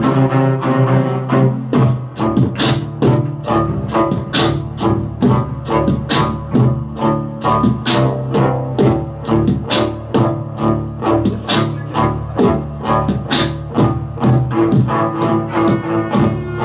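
Cellos playing live, bowing low sustained notes under a melody, with a fast, steady percussive beat running through it.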